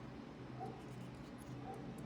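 Faint, scattered light clicks of a plastic keycap being handled, over a steady low hum.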